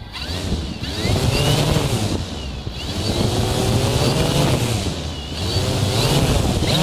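Small Hubsan quadcopter drone's motors and propellers whirring, the pitch rising and falling again and again as the throttle changes, over a low rush of air.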